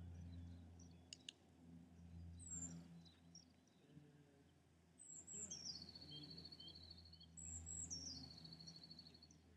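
A small songbird sings twice, each phrase sliding down from very high into a level trill about two seconds long, after a single short high call earlier. A steady low hum lies underneath.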